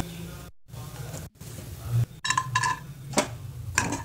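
Steel spoon clinking and scraping against an aluminium kadai as cashews are stirred in ghee. The pan rings briefly with each knock. The sound drops out twice in the first second and a half, and the clinks start about two seconds in.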